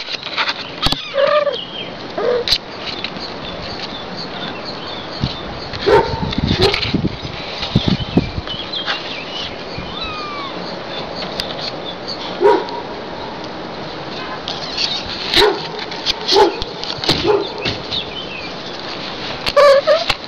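A dog barking, short single barks every few seconds, with small birds chirping.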